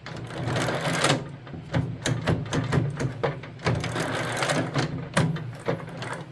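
Snowblower friction-wheel drive turning with the drive lever engaged: a steady low hum with rapid, irregular clicking and rattling from the turning drive parts.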